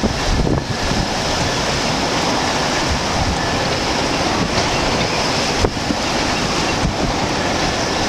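Hurricane-force Bora wind storm: a loud, steady rush of wind buffeting the microphone over rough, churning harbour waves, with heavier gusts in the first second.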